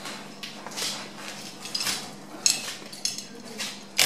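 A knife working through the hide of a hanging deer carcass as it is skinned: a run of short scraping strokes about every half second, with a sharp click at the very end.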